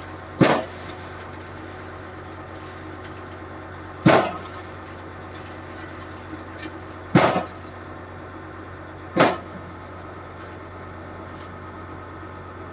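A steady low machine hum with four loud, sharp knocks, each dying away quickly, spaced a few seconds apart.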